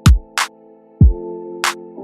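Background electronic music with a drum-machine beat: deep kick drums about a second apart, sharp snare hits between them, and held synth chords.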